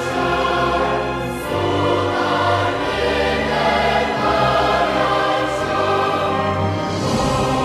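Background music: a choir singing with instrumental accompaniment and steady sustained bass notes.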